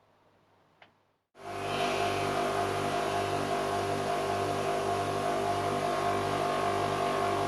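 Titan 200mm bench grinder running at speed: a steady motor hum with a low beat pulsing about twice a second, which cuts in suddenly about a second and a half in. The right-hand wheel has just been rebalanced by rotating its flange plate and is running quite a bit smoother, though some wobble remains.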